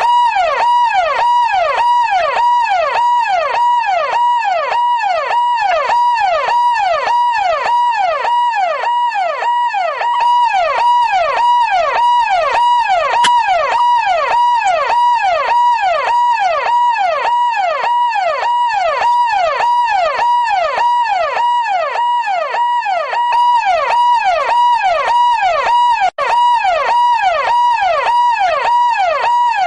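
Electronic police siren in a yelp pattern: one pitched tone sweeping up and down about three times every two seconds, steady and loud. It cuts out for an instant near the end.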